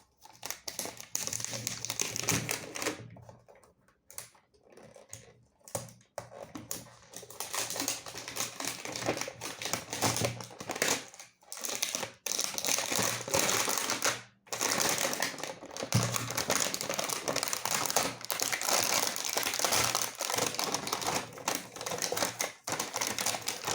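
Plastic wrapping of a Mini Brands toy capsule being peeled and crinkled by hand: a dense run of crackles and small clicks, broken by a few short pauses.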